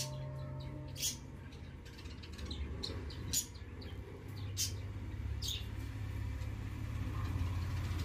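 Cockatiels giving a handful of short, high chirps, scattered and spaced a second or more apart, over a low background hum.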